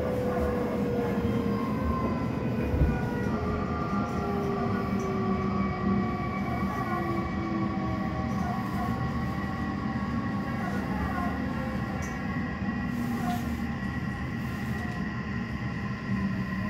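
Inside an Odakyu 3000-series electric train: the Mitsubishi IGBT-VVVF inverter and totally enclosed traction motors whine in several tones that glide slowly downward as the train brakes into a station, over a steady rumble of wheels on rail.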